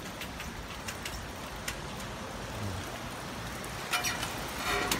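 Shallow river water running over a concrete channel bed, a steady rushing hiss, with a few scattered clicks.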